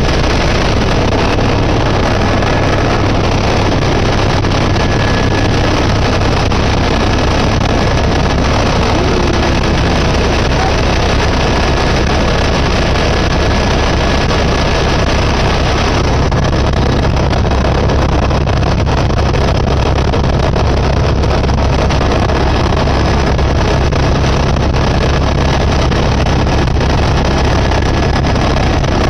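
Helicopter engine and rotor noise heard inside the cabin in flight: a loud, steady drone with a faint high whine running through it.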